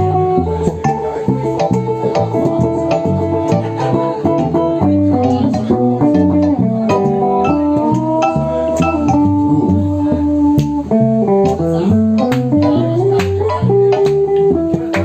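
Live band playing an instrumental passage: electric bass and drums under long held melody notes that step and slide between pitches.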